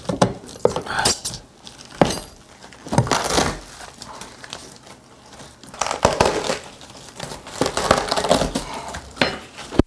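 Metal scraper blade scraping and prying at WEDI foam backer board and dried thinset mortar, with crunching and crumbling in irregular bursts and a few sharp clicks.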